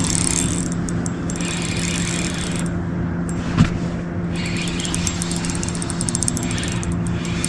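A boat motor running steadily, giving a constant low hum over a rushing noise, with one short knock about three and a half seconds in.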